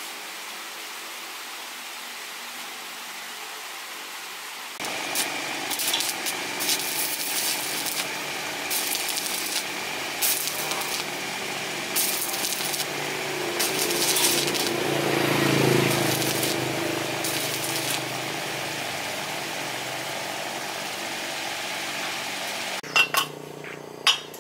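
A steady hiss at first. About five seconds in, a small power tool starts and runs, with repeated louder stretches and a rise and fall in pitch near the middle. It stops shortly before the end, and a few sharp metal clinks follow.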